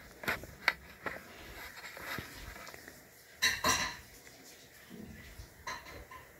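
Fingertips tapping on a tablet's touchscreen keyboard while typing: a few sharp clicks in the first second, a louder clatter about three and a half seconds in, and fainter ticks near the end.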